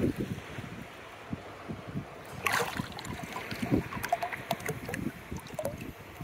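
Wind buffeting the microphone over shallow beach water lapping and sloshing, with a brief splash about two and a half seconds in.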